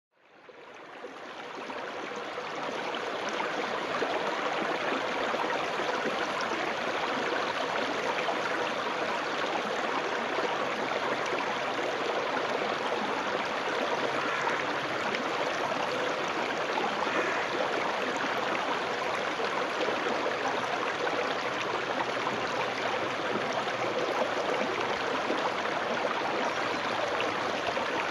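A small woodland stream, swollen after rain, running and babbling steadily over stones and leaf litter, fading in over the first few seconds.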